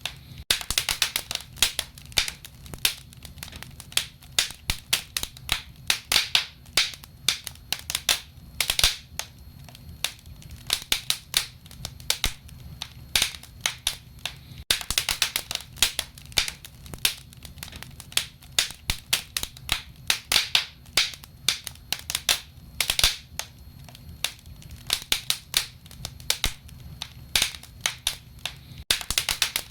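Wood fire crackling in a fireplace: irregular sharp pops and snaps, several a second, some louder than others, over a low steady rumble of the flames.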